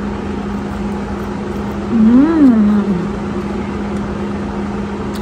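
A steady low hum with one moan, about two seconds in, that rises and then falls and lasts about a second.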